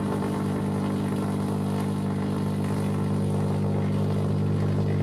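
GU-39B vacuum tube Tesla coil running, throwing branching sparks into the air with a steady, loud, low buzz.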